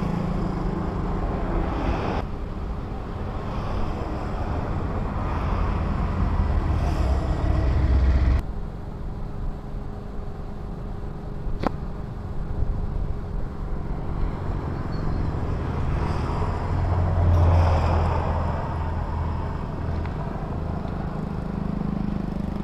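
Road traffic: a steady low engine rumble with vehicles passing, swelling twice, and a single sharp click near the middle.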